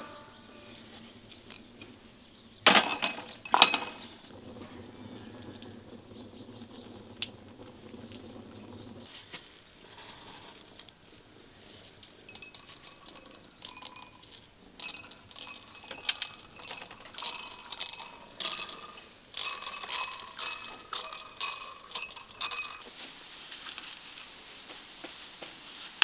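Glass jars clinking twice with a short ring after each, a few seconds in. From about halfway on, roughly ten seconds of dry crackling and crunching as spices are handled by hand.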